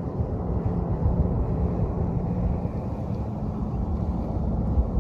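Wind rumbling on the microphone, with a faint steady low hum underneath.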